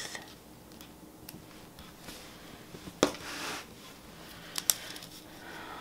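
Quiet handling of a spiral planner and a pen: a brief rustle of paper about three seconds in, then two sharp clicks close together as the pen is taken up.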